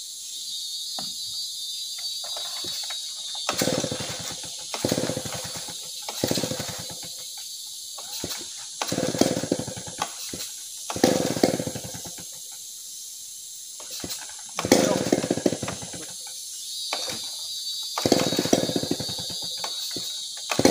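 Large two-stroke chainsaw being pull-started over and over: about eight pulls, each giving a second or so of the engine turning over and sputtering before it dies again. Insects shrill steadily in the background.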